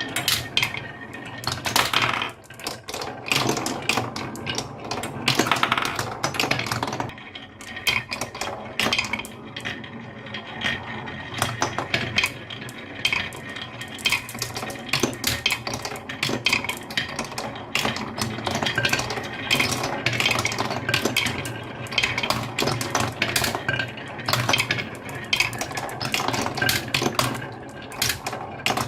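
Marbles rolling and clacking along a HABA wooden marble-run track, a steady rattle broken by many sharp clicks and knocks.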